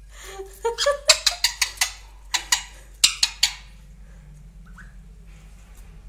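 Alexandrine parakeet giving a rapid series of about a dozen loud, harsh screeches over about three seconds, then falling quiet. These are the agitated calls of an angry parrot.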